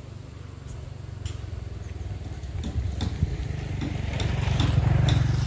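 A vehicle engine running, with a steady low rumble that grows louder over the last second or two as it draws near, plus a few light clicks.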